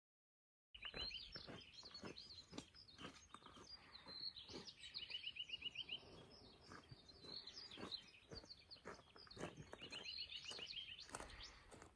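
Small birds chirping, with two quick trills of evenly repeated high notes. The sound starts suddenly just under a second in, after dead silence, and faint short clicks and taps run underneath.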